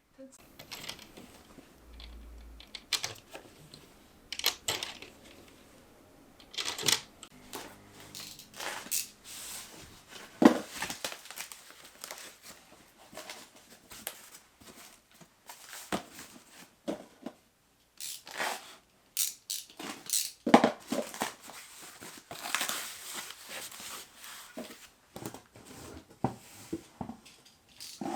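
Household objects being handled: scattered knocks, clicks and short rustles, with no steady rhythm.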